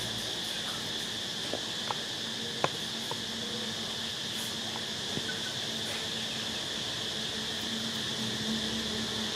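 Steady, high-pitched drone of insects chirring. A few small sharp clicks sound in the first three seconds, the loudest about two and a half seconds in.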